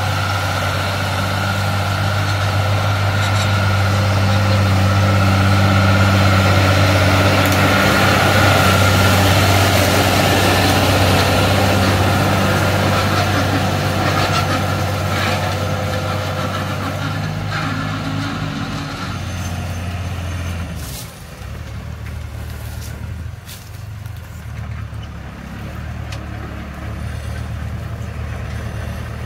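A John Deere 3350 tractor's diesel engine runs steadily under load as it drags a disc harrow through the soil, with scattered clanks from the harrow's steel discs and frame. About two-thirds of the way in, the engine note drops and gets quieter.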